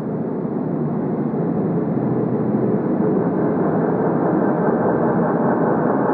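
Industrial noise-drone music: a dense, steady rumbling wash of noise that swells slightly over the first few seconds and then holds.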